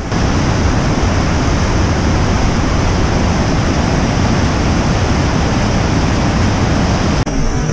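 Whitewater river rapids in high spring flow, a loud, steady rush of water heavy in the low end. About seven seconds in it cuts off abruptly and switches to a thinner rush of water.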